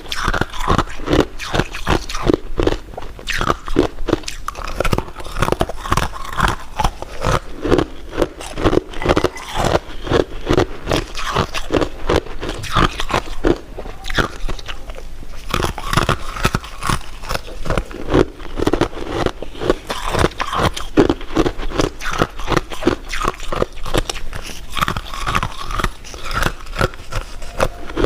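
Close-miked eating sounds: a continuous run of crunching bites and chewing of sweet desserts, many quick crackles a second.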